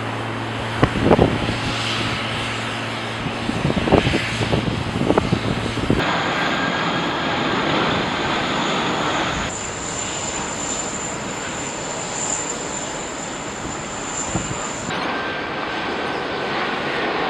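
Boeing 747 jet engines at take-off and landing: a steady rush of jet noise in spliced clips that change abruptly about six, nine and a half and fifteen seconds in. A few sudden low bumps come in the first five seconds.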